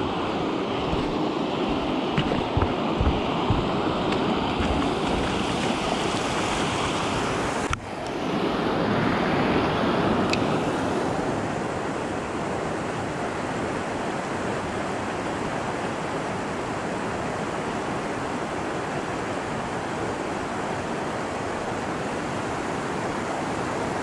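Creek water rushing over a low weir, a steady rush of noise. It cuts off abruptly about eight seconds in and gives way to a slightly softer, steady rush of flowing creek water.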